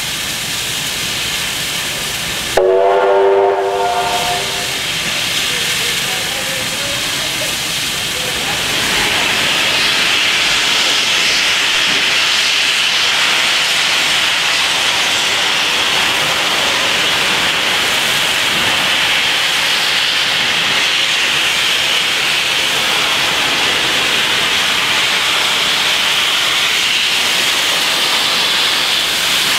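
NSW C38-class Pacific steam locomotive 3801 gives a short blast on its steam whistle about three seconds in, then steam hisses steadily from its open cylinder drain cocks, growing louder from about nine seconds in as the locomotive moves off.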